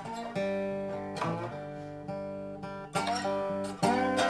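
Dobro slide guitar music: plucked notes that ring out and fade, with some notes sliding in pitch.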